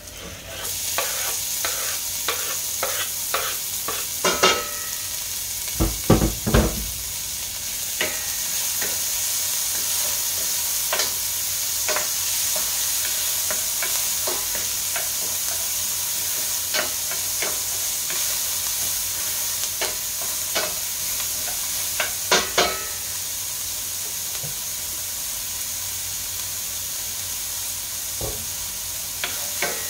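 Diced onion and garlic sizzling in hot oil in a stainless steel frying pan. A wooden spoon scrapes and clicks against the pan as the food is stirred. The sizzle rises about half a second in as the onion goes in, and there is a single low thump around six seconds in.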